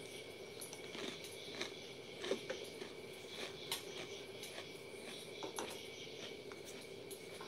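A person chewing a thin, crisp chocolate cookie: quiet, irregular crunches and mouth clicks, with a steady faint hum in the background.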